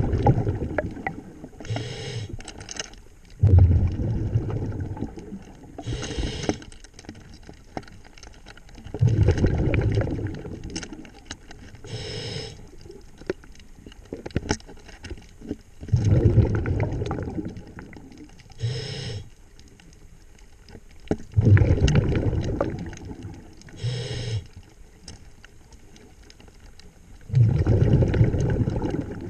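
A scuba diver breathing through a regulator underwater: a short hiss on each inhale, then a longer low bubbling burst as the exhaled air leaves, about one breath every six seconds.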